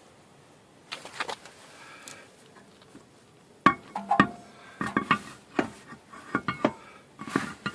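Metal tools clanking and clinking in irregular knocks from about three and a half seconds in, some with a short metallic ring, as wheel-changing gear (jack, lug wrench, spare hardware) is handled.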